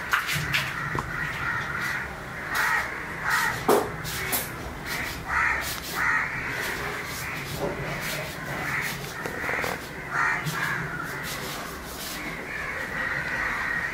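Crows cawing again and again, irregular calls spread throughout.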